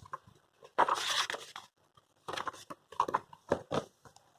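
Irregular rustling and crinkling handling noises: one longer rustle about a second in, then several short ones.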